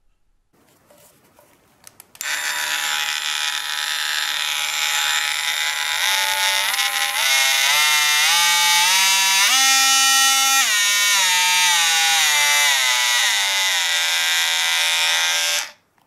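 Aldi Workzone 12V cordless oscillating multi-tool switched on after a few clicks and running unloaded with a loud buzz. Its pitch steps up through the variable speed settings to a peak about ten seconds in, then steps back down before the tool cuts off suddenly near the end.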